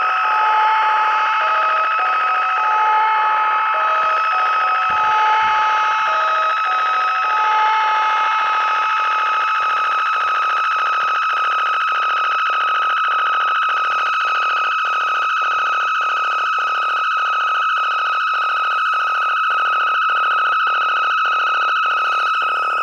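littleBits electronic synth modules sounding a steady, high electronic drone. For the first several seconds a run of short notes steps up and down in pitch over it; after that a regular pulse ticks about twice a second.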